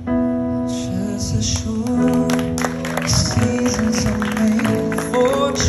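Music: a song with singing over guitar, coming in suddenly at the start.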